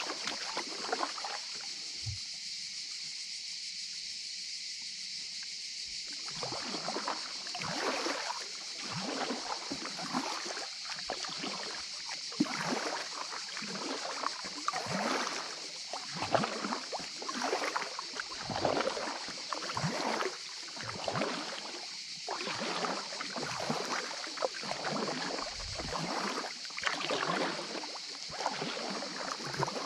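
Kayak paddle strokes dipping and splashing, with water slapping against an inflatable kayak's hull, coming irregularly about once or twice a second from about six seconds in, over a steady hiss.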